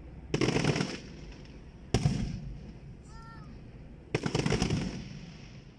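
Aerial fireworks going off: a dense burst of rapid crackling pops about half a second in, a single sharp bang with a short rumbling tail at about two seconds, and another crackling burst a little after four seconds.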